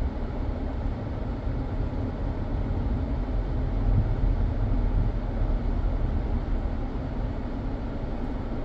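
Steady low rumble of a car on the move: road and engine noise, with no sudden sounds.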